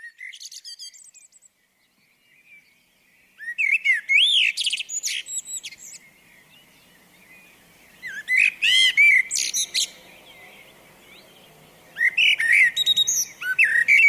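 Eurasian blackbird singing: three phrases of fluting warbled notes, each with higher twittering, a few seconds apart, after a few brief high chirps at the start.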